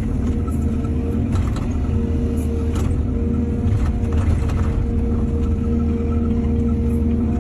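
Excavator's diesel engine running steadily with a steady whine over it, and several short clanks and scrapes between about one and four and a half seconds in, typical of the bucket digging and dumping soil.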